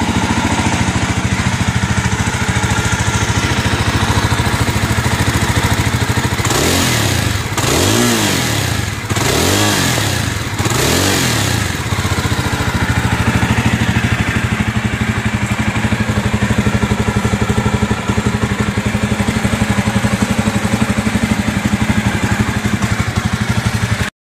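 Jawa Perak's 334 cc single-cylinder engine idling through its exhaust, revved several times in quick succession, each rev rising and falling, then settling back to a steady idle.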